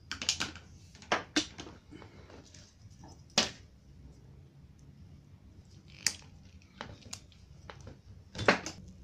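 Scattered sharp clicks and knocks, a few seconds apart, from a USB cable being handled and moved about on a hard tabletop, over a steady low hum.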